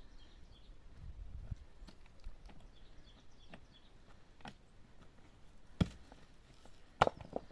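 A few scattered sharp knocks, the two loudest in the last two seconds, with faint high chirps in the background.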